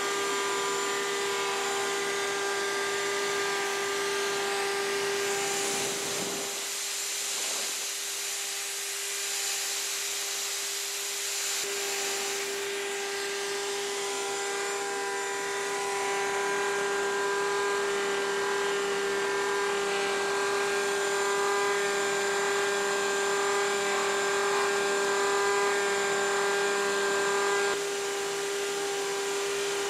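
Wood router running with a steady whine as its carbide bit carves a wooden hammer handle on a lathe-mounted copier. A dust extractor runs alongside.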